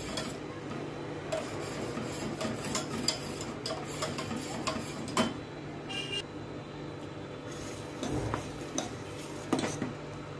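Wire whisk stirring milk thickened with homemade custard mix in a steel saucepan: repeated light scraping and clinking of the wires against the pan, irregular and continuous.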